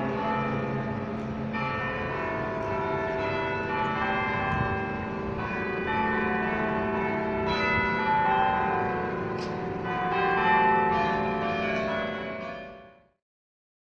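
An 18-bell carillon playing a tune: struck bell notes overlap and ring on. The sound fades out quickly near the end.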